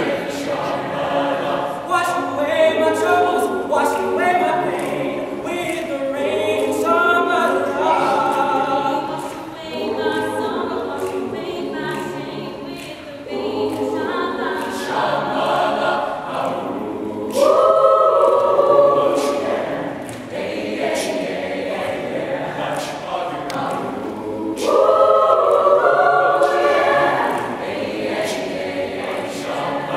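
Mixed-voice choir singing a cappella, young men's and women's voices together, swelling louder twice, once midway and again near the end.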